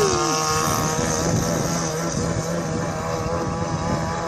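26cc two-stroke petrol engine of a radio-controlled boat running at high throttle, a steady buzz that grows slightly fainter.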